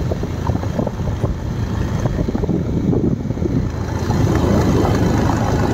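A vehicle running along a rough dirt road: steady engine and road rumble with irregular knocks, and wind buffeting the microphone. It gets louder about four seconds in.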